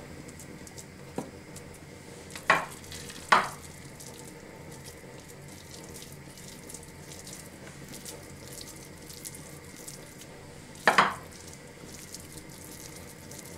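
Hands tearing off and rolling raw minced-meat köfte mixture, a soft wet squishing, with a few sharp pats of the meat: two close together a few seconds in and one more near the end.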